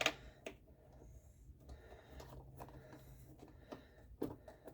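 Tools and metal parts being handled during car door reassembly: a few faint, scattered clicks and taps, the sharpest right at the start.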